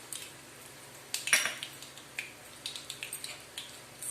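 Mustard seeds and urad dal crackling in hot sesame oil, with scattered sharp pops, and a metal spoon clinking against the pan or spice container about a second in.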